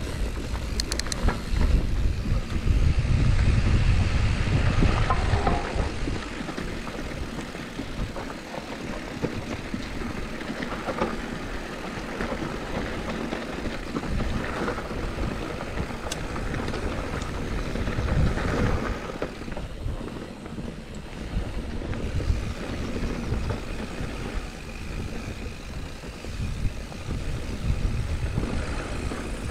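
Mountain bike rolling fast down a dirt trail: wind rumbling on the rider-mounted camera's microphone over tyre noise on dirt, with scattered clicks and knocks as the bike goes over bumps. The rumble is strongest a few seconds in.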